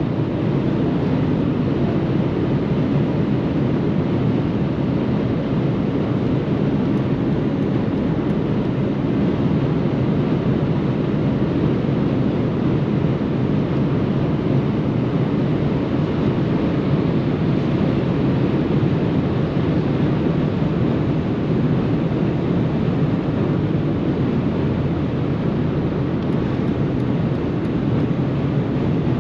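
Mercedes-Benz E 200 W211 driving at speed on the autobahn: a steady rush of tyre, wind and engine noise, holding even with no rise or fall in pitch.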